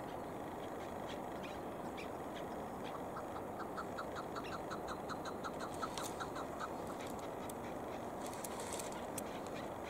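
Chukar partridge calling: a quick run of about eighteen short, even 'chuk' notes, roughly five a second, lasting some three seconds midway through, over a steady background hiss.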